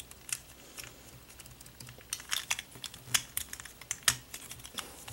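Irregular clicks and clacks of a Gear Shift twisty puzzle's plastic pieces and gears being turned by hand, a few a second.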